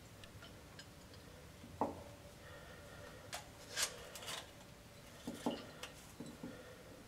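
Glass Erlenmeyer flask being swirled under a burette and moved on the stand's metal base while titrant is added: a handful of faint, scattered clinks and knocks of glass against glass and metal.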